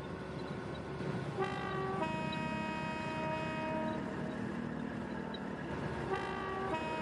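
Train horn sounding two-note blasts, a short higher note followed by a longer lower one, twice over a steady background hum.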